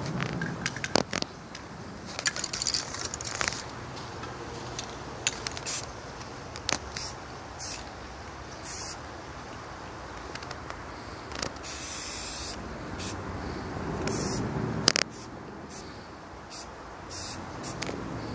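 Aerosol spray-paint can hissing in short bursts as paint is sprayed, with one longer burst about two-thirds of the way through. Sharp clicks and knocks are scattered between the bursts.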